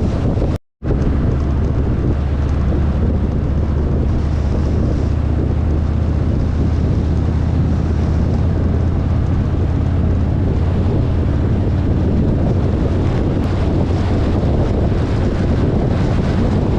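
Harley-Davidson touring motorcycle's V-twin engine running steadily at highway cruising speed, with heavy wind buffeting on the microphone. The sound cuts out for a split second near the start.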